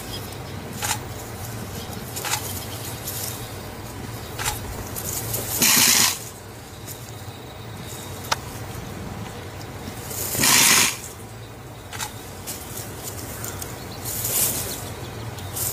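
Crested porcupine rattling its raised quills in loud hissing bursts, twice and then more weakly a third time, over a low steady hum, with a few sharp clicks in between.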